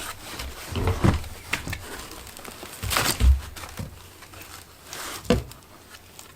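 A pair of aftermarket quad headlight units and their packaging being handled by hand: a few separate knocks with rustling between them, the sharpest about three seconds in and another about five seconds in.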